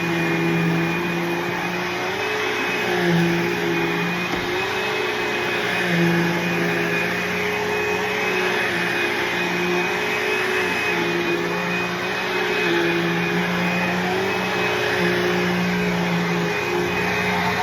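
Bissell CleanView II bagless upright vacuum cleaner running steadily. A constant high whine sits over its motor hum, and the hum wavers in pitch every second or two as it works.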